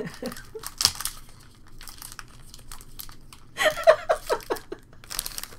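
Foil booster-pack wrapper crinkling and tearing as it is pulled open by hand. A short burst of laughter comes a little past halfway.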